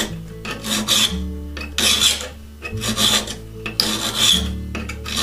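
A flat file rasping across the edge of a saw-steel scratch-stock cutter, in steady strokes about one a second, filing down the sides of the cutter beside its bead.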